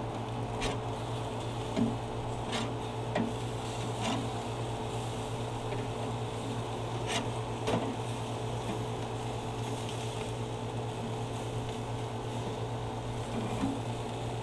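Steady low hum with about eight sharp clicks and knocks scattered irregularly over it: the clatter of grilling utensils at a grill.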